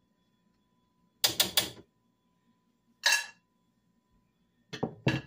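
Kitchen items being handled and set down: a quick run of three knocks about a second in, a short rattle a couple of seconds later, and two more knocks near the end.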